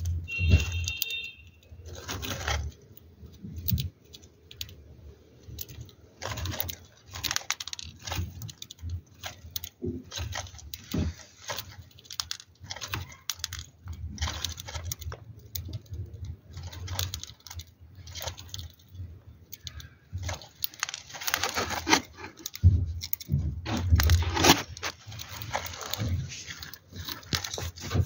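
Budgerigar pecking and cracking seeds on a millet spray: irregular dry crunching and crackling clicks, with husks and the spray rustling against the cardboard box. A short high chirp sounds about half a second in.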